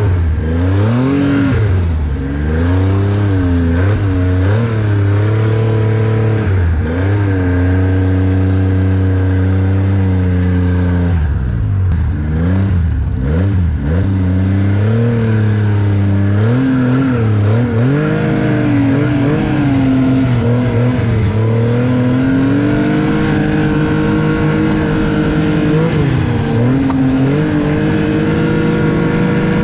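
Arctic Cat snowmobile engine under way, its pitch rising and falling as the throttle is worked; it drops low about twelve seconds in, then climbs again.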